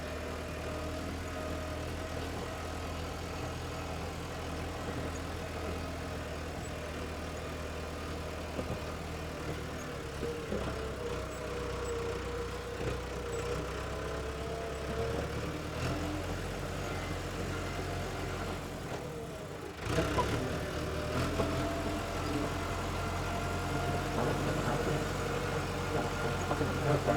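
Diesel tractor engine running steadily. It dips briefly just before twenty seconds in, then picks up and runs a little louder.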